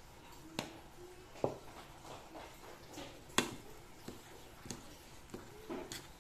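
A fork stirring a thick mashed tempeh and flour mixture in a bowl, giving irregular knocks and scrapes as it hits the bowl, about seven or eight in all, one louder knock a little past halfway.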